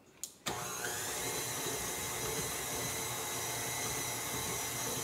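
Electric stand mixer switched on, its motor running steadily as the paddle beats cream cheese and cheesecake seasoning in the steel bowl. It starts about half a second in, just after a short knock.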